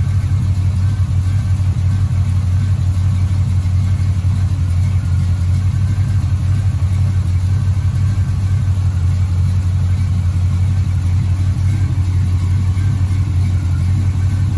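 Small-block Chevy V8 idling steadily with a deep, even rumble. The owner thinks the idle sounds like a cam of about 272 duration.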